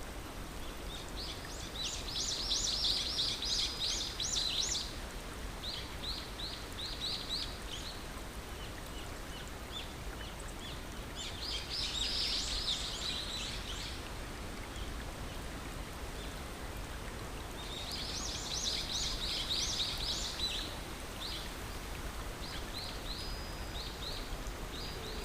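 A songbird singing three bursts of rapid, high chirping notes, each followed by a softer run of single notes, over a steady rushing hiss of running water.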